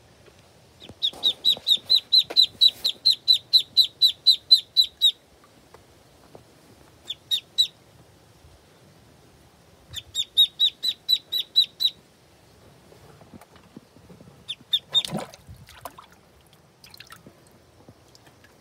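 Duckling peeping loudly: rapid runs of short, high calls, about five a second, in three main bursts with pauses between them. A brief scuffling noise comes about fifteen seconds in.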